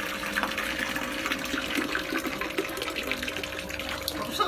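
Koi pond water splashing and churning steadily, full of small quick splashes as a crowd of koi thrashes at the surface.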